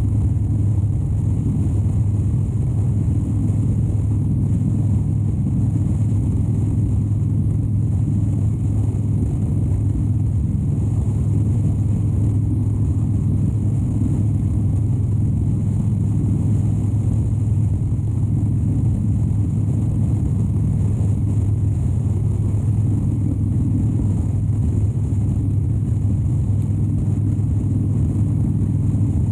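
2013 Harley-Davidson Dyna Wide Glide's 103-cubic-inch V-twin engine running steadily at an even cruising speed.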